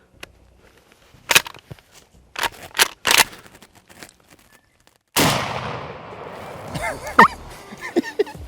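Shotgun in a turkey hunt: several sharp clicks and knocks of the action in the first three seconds, then a loud shot about five seconds in that rings out and fades. This comes in the middle of a misfire at a gobbler.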